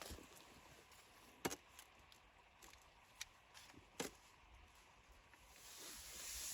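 Near-silent background broken by two sharp cracks or knocks about two and a half seconds apart, with a few fainter ticks between; a soft hiss swells near the end.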